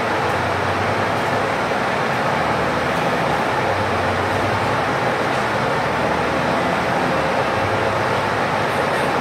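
Cabin noise of a city bus on the move: engine running and road rumble, a steady noise heard from inside the bus.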